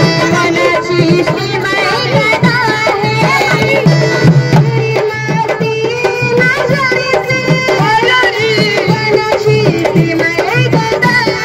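Live Indian folk music: dholak barrel drums playing a steady, brisk beat under a wavering melody from an electronic keyboard.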